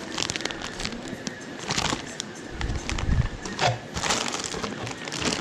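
Plastic packaging rustling and crinkling in irregular handfuls as accessories are pulled from their bags, with a few soft knocks about three seconds in.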